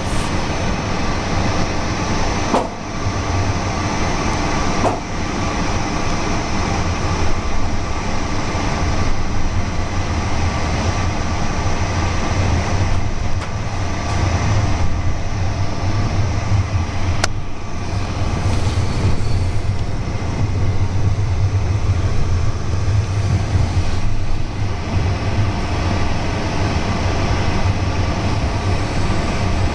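EuroCity passenger train running at speed, heard from inside the coach: a steady rumble of wheels on the rails over a low hum, with a couple of brief knocks in the first few seconds.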